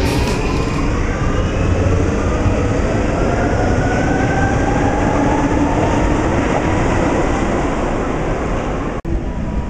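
Munich U-Bahn train pulling out of an underground station, its electric traction motors whining upward in pitch as it accelerates over a steady rumble of wheels on rail. There is a brief cut near the end, after which train noise continues.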